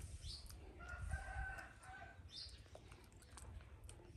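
A rooster crowing once, faint, for about a second, starting about a second in.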